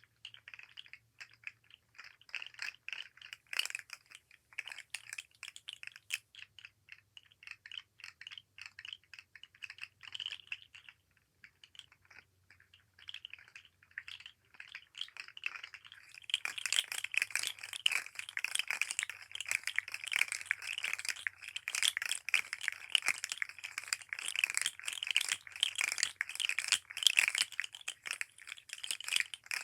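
Articulated plastic fidget slug toy being flexed and shaken, its segments clicking and rattling against each other. The clicks are sparse at first, then become a denser, louder rattle from about halfway through.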